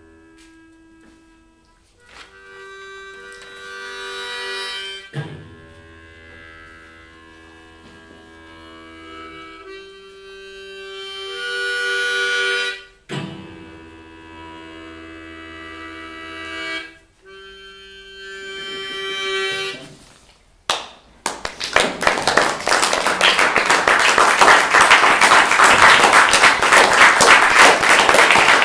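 A small harmonica playing a slow tune of held chords in several swelling phrases. About three quarters of the way through, the playing stops and an audience starts applauding, louder than the harmonica.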